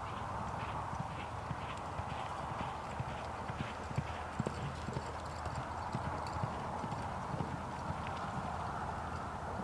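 A horse's hooves clip-clopping on the ground in a repeated rhythm, over a steady background hiss.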